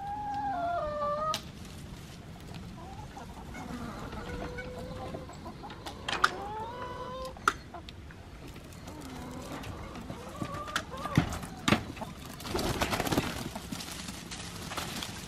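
Hens clucking and calling in and around a wooden coop, with several sharp clicks and knocks from the coop door and its latch. Near the end comes a burst of rustling as the door is opened and the hens pour out.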